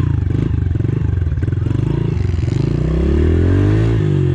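Small single-cylinder four-stroke pit bike engine of a Honda CRF110 running with a fast, even pulse. In the second half it revs up and then drops back.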